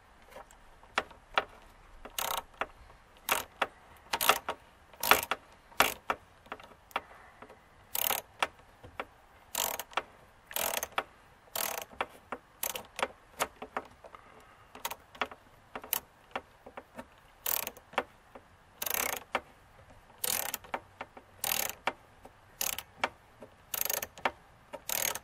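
Hand driver ratcheting in short bursts of metallic clicks, about one burst a second, as it turns the worm screw of a hose clamp to tighten it onto a K&N cone air filter.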